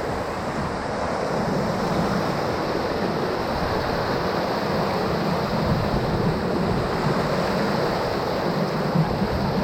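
Whitewater rushing steadily through a river rapid, an even roar of moving water with no break.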